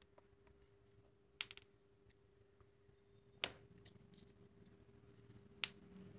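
Three sharp snapping clicks about two seconds apart, the first a quick double snap, from the homemade mini shock machine being triggered. A faint steady hum runs underneath.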